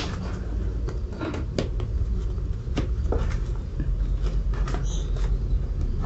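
Hands fitting the plastic air filter cover of a Honda CBF125 motorcycle over its screws: scattered light plastic clicks and knocks over a low steady rumble.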